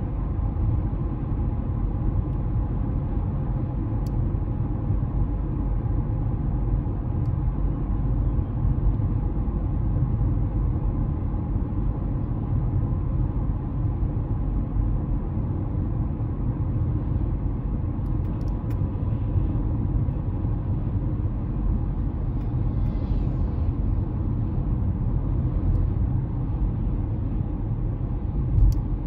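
Steady low road rumble of a Honda CR-V driving, with a faint hum and a few light clicks, one near the end.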